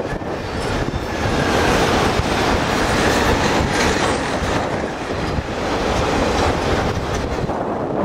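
Autorack cars of a freight train rolling past, their wheels clacking over the rail joints. Wind rumbles on the microphone underneath.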